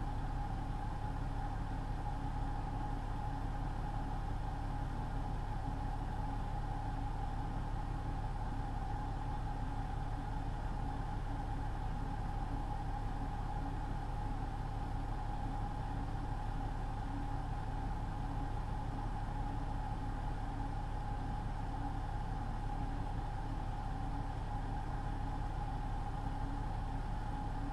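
Steady drone of a semi truck cruising on the highway: engine and road rumble heard from a dashcam inside the cab, with a constant mid-pitched hum over it.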